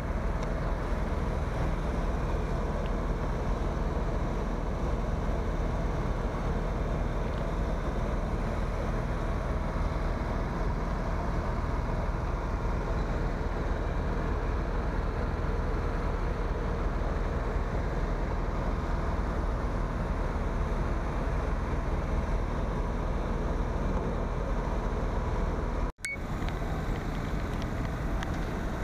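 Steady outdoor background noise with a low rumble, with no distinct event standing out; it drops out for an instant about 26 seconds in.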